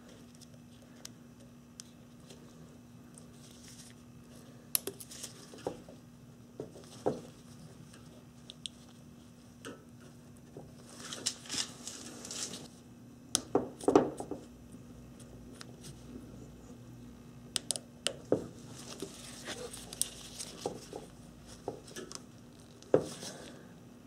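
Small scattered clicks, taps and rustles of hand work on a plastic automotive connector: a flathead screwdriver prying at the terminal locking tabs and gloved fingers rubbing and gripping. A faint steady hum runs underneath.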